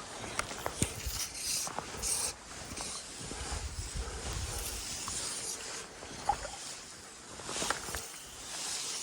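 Steady rush of stream water, with scattered small knocks and rustles of gear being handled and a low rumble of wind on the microphone.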